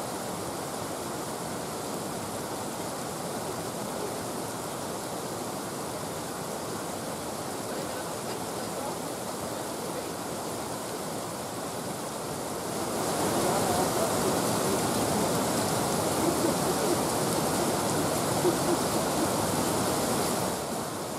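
Steady rushing of river water pouring over a weir. About thirteen seconds in, a louder noise swells in on top of it for around eight seconds, then falls back.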